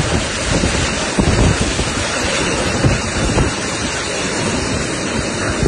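Loud rushing water, with wind buffeting the microphone in uneven low gusts.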